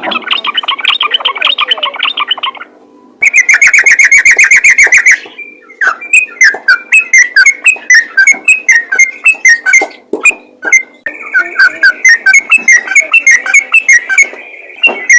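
Yellow-vented bulbul (trucukan) singing loudly in fast, continuous runs of quick repeated chattering notes (the 'ropel' song style), in several bursts broken by short pauses.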